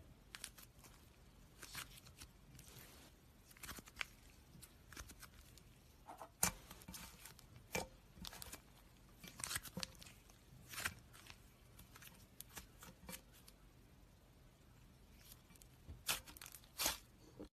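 Slime being handled: scattered soft crackles and clicks every second or two, with a few sharper pops.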